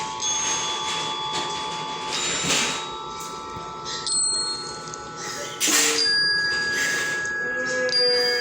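A string of comedic clown sound effects: ringing, bell-like tones sounding throughout, broken by a few short hissing bursts, the sharpest about six seconds in.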